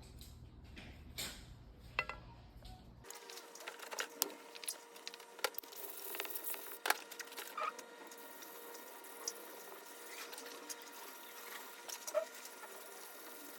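Irregular light clicks and scrapes with wet patter: a single-bevel yanagiba sashimi knife being handled and worked on a wet whetstone.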